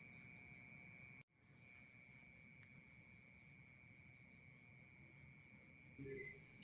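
Near silence with faint night insects: a steady high-pitched chirr and a rapid pulsing trill, likely crickets. The sound drops out for a moment about a second in.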